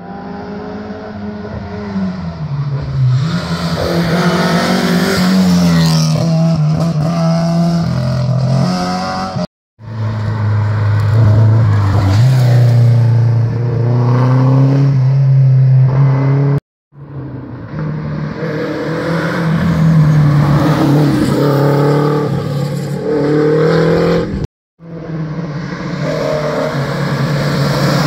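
Historic rally cars passing at speed, their engines revving up and dropping back with each gear change. There are four separate passes, each cut off abruptly.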